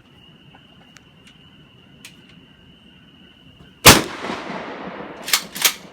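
A single gunshot about four seconds in, its report echoing and dying away over about a second, followed by two quick sharp clacks about a second and a half later.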